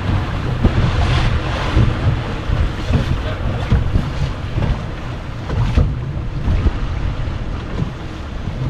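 Wind buffeting the microphone, with choppy water slapping against a moving boat's hull.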